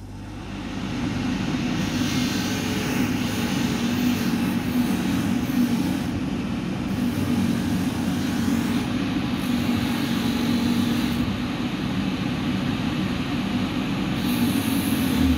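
Mini-Polimat bench polishing machine spinning up to speed about a second in, then running steadily with a motor hum. An abrasive satin-finishing wheel grinds against a metal watch part held to it to matte the exposed surfaces, the higher grinding hiss coming and going as the part is worked.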